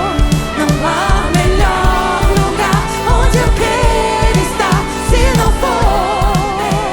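Live worship band playing, with a woman's voice singing long, wavering notes with heavy vibrato over a steady drum and bass beat.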